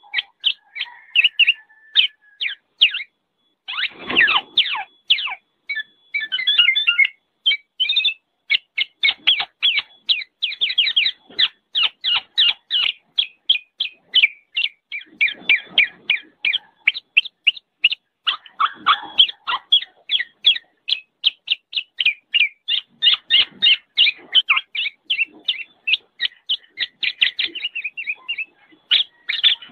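Black-naped oriole giving a fast, noisy chatter of short sharp notes, about five a second, with a few brief breaks.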